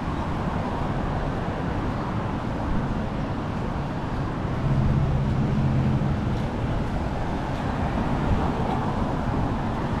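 Steady street traffic noise, with a rough low rumble of wind on the microphone. A vehicle's engine hum swells for a second or two around the middle.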